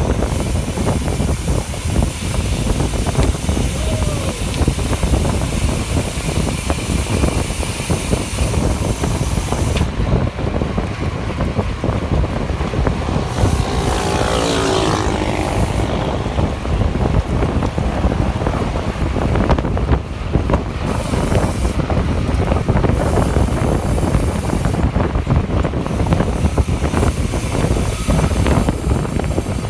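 Wind buffeting the microphone of a camera carried on a bicycle ridden at speed: a steady, loud low rush, with a short voice-like call about halfway through.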